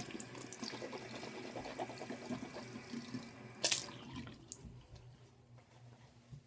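Tap water running into a sink, a sharp knock shortly before the flow stops about four seconds in.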